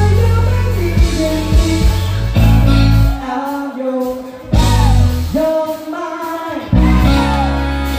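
Live band playing a rock song, with electric bass, saxophone and singing. The bass and rhythm stop twice for a short break, a few seconds in and again past the middle, while the melody carries on.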